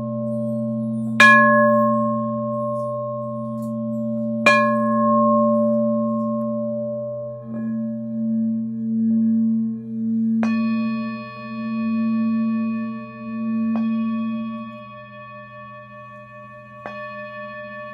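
Singing bowls struck five times, each strike ringing on in several clear overlapping tones, over a continuous low hum from the bowls. The low tone swells and fades in slow pulses through the middle and then settles quieter. A bowl with a different set of tones joins about ten seconds in.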